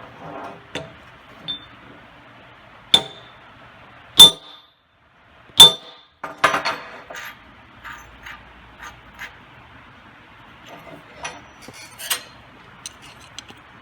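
Three sharp metal-on-metal hammer strikes on a carburetor's warped power valve cover, about a second and a half apart, each with a brief ring, followed by lighter clicks and clinks. The strikes are flattening the warped cover so that it will seal.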